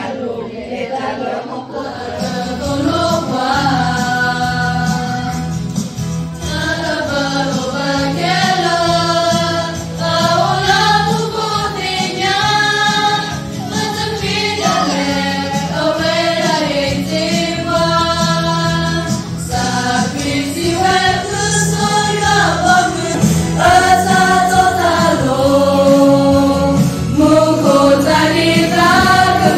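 A group of women and girls singing a hymn together, holding long sustained notes.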